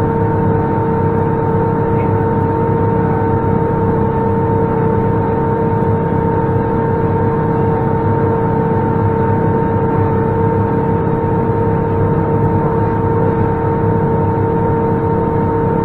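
Tractor engine running steadily under load while a Kuhn GMD 800 disc mower's spinning discs cut hay: a constant drone with a steady whine on top.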